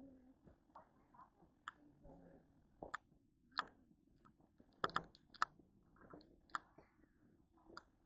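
Footsteps crunching on a dirt forest trail: a string of irregular, crisp steps, the loudest few about five seconds in.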